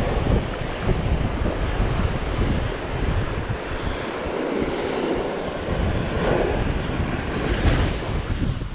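Ocean surf washing up on a sandy beach, with wind buffeting the microphone in heavy gusts.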